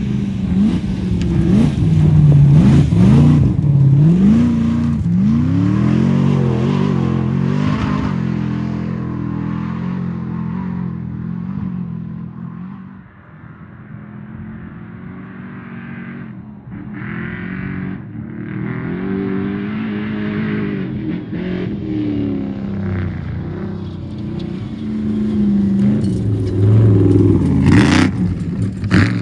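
Off-road racing trophy truck engine revving hard, its pitch rising and falling with throttle and gear changes. Loud at first, it fades to a low about halfway through, then engine sound builds again and is loudest near the end.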